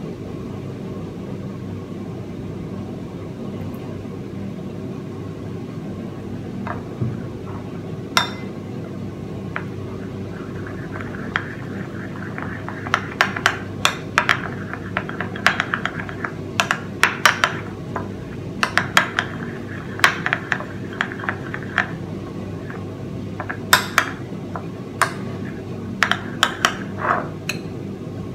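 Metal spoon stirring peanut butter with hot water in a small ceramic bowl, scraping and clinking against the bowl's sides, a few clinks at first and then rapid, repeated clinks from about twelve seconds in. A steady low hum runs underneath.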